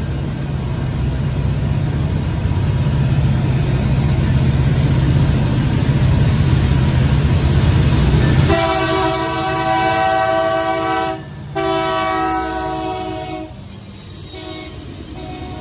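Norfolk Southern diesel freight locomotive approaching with a low engine rumble building. About eight seconds in its multi-chime air horn sounds a long blast of about five seconds, and then the locomotives rush past.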